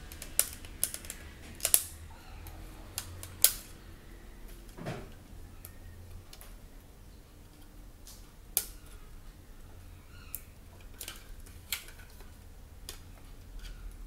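About a dozen sharp, irregularly spaced clicks and taps of a laptop DVD drive and its plastic front cover being handled and fitted, with one duller knock about five seconds in.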